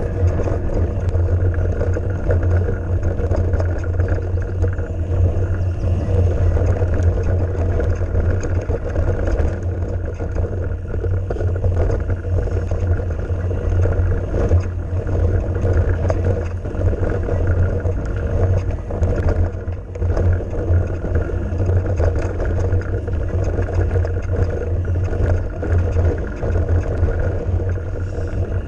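A mountain bike on a fast descent over a gravel and rock trail: a steady loud rumble of wind buffeting the microphone and tyres rolling on loose stones, with small rattles and knocks from the rough ground.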